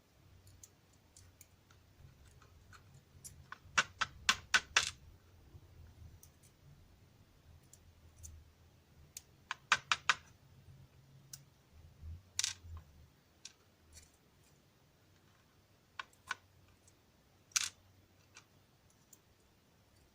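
Small metal parts of a Dom ix Saturn lock clicking as its key pins are picked out. There are two quick runs of light taps, about four to five each, and a few single clicks.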